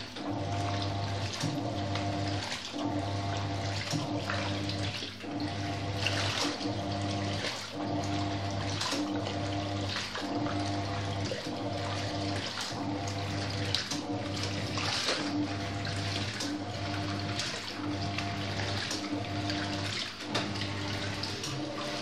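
Hoover top-loading washing machine agitating a full load: a steady motor hum that drops out briefly about every second and a half as the agitator swings back and forth, over water sloshing and splashing in the tub.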